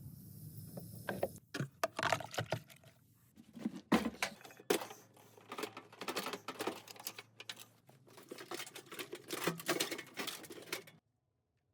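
Irregular clicking and clattering of hand tools and machine parts being handled during washing-machine repair work; the sound cuts off suddenly near the end.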